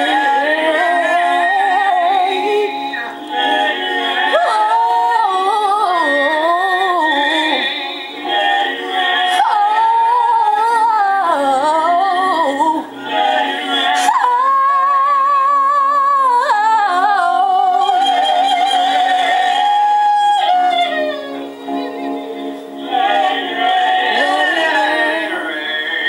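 Gospel singing: a woman's high voice sings ornamented runs with vibrato, holding one long note about two-thirds of the way through.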